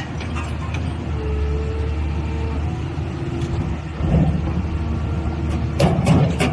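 Small alligator scrap shear (eagle-beak shear) running with a steady low hum, with heavier crunching clanks of metal being sheared about four seconds in and again near the end.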